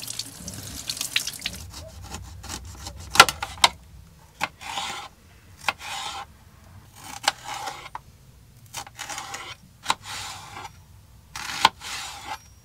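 A faucet runs as a bell pepper is rinsed under it in a small sink at first, then a kitchen knife slices bell peppers on a ceramic plate: a row of short cutting strokes about once a second, with sharp clicks of the blade against the plate.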